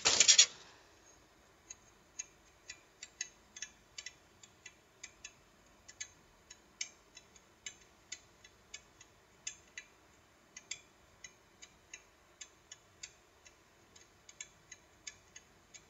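Aluminium foil crinkling loudly for about half a second at the start, then a long run of small, sharp, irregular clicks, about one to two a second.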